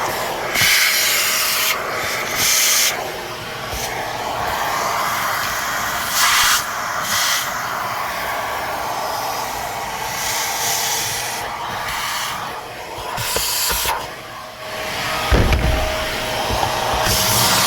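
Shark Navigator Lift-Away UV440 vacuum cleaner running through its crevice tool: a steady motor whine under rushing, hissing suction that swells and dips several times as the nozzle moves. A brief low thump comes about fifteen seconds in.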